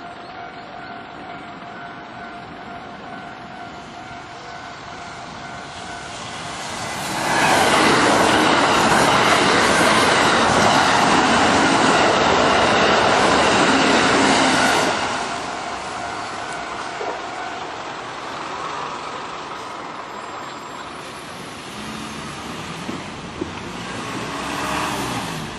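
Japanese level crossing warning bell ringing in steady tones. From about seven seconds in, an electric train passes through the crossing loudly for about eight seconds and drowns out the bell, then the noise drops back. This crossing's bell is not turned down once the barriers are lowered.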